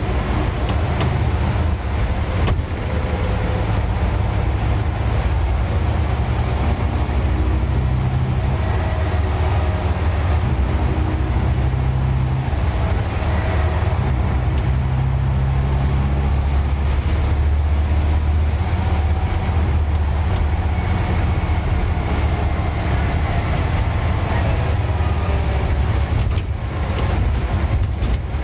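Scania N94UD double-decker bus on the move, heard from the upper deck: a steady, loud low drone from the engine and drivetrain, its note rising and falling a few times, with a faint whine over it.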